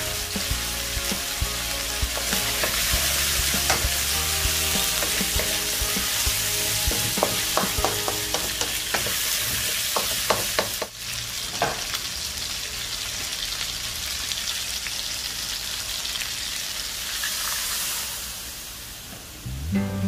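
Chicken wings frying in hot oil in a wok with onion, garlic and ginger, sizzling steadily while a wooden spoon stirs and scrapes, clicking against the pan. Near the end the sizzle softens as coconut milk goes into the pan.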